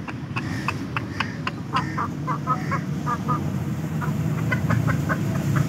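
Young Aseel chicken (pullet) giving short, high peeping calls, several a second in loose runs with brief pauses, over a steady low rumble.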